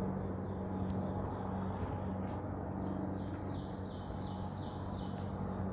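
A bird chirping in short, quick falling calls, a fast run of them through the second half, over a steady low hum.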